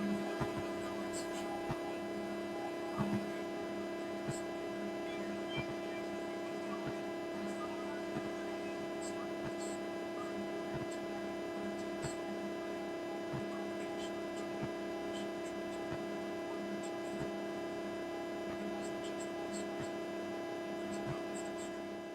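A steady, even hum of a few fixed tones, with scattered faint clicks.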